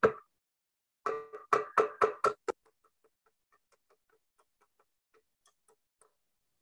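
Claw hammer driving small nails into a wooden board: one sharp strike at the start, a quick run of about six loud strikes a second in, then many light, even taps, about three a second.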